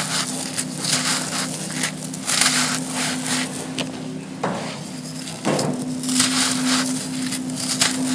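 Dry, gritty sand cones being crumbled and crushed, giving an irregular run of crisp, grainy crunches over a steady low hum.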